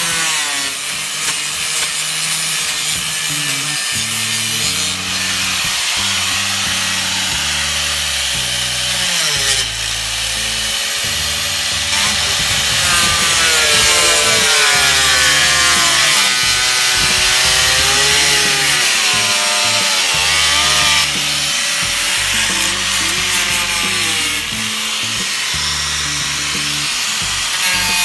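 Handheld power tool working continuously on the car's rusty body sheet metal, its motor pitch wavering up and down as it is pressed into the work, over background music with a stepping bass line.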